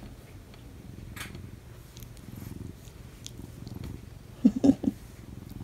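Domestic cat purring steadily in a low, even pulse, with a quick cluster of three or four short louder sounds about four and a half seconds in.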